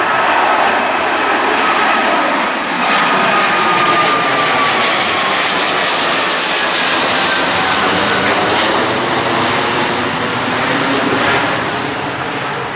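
Boeing 777F freighter's twin GE90-115B turbofans at takeoff power, passing low overhead: a loud jet roar with a whining tone that falls in pitch as it goes by, easing off near the end.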